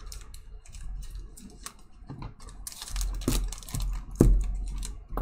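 Light clicks and rustles of clear plastic trading-card holders and sleeves being handled and shuffled, at an irregular pace.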